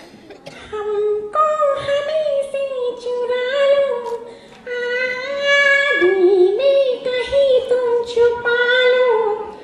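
A woman vocally imitating a shehnai into a microphone: a wordless melody of long held notes that slide between pitches, in a few phrases with short breaks between them.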